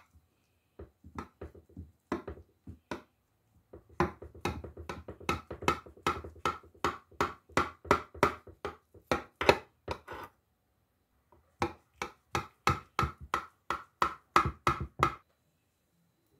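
Kitchen knife cutting through a baked potato gratin in a glass baking dish: a quick run of sharp taps, about three a second, with a short pause about ten seconds in, stopping about a second before the end.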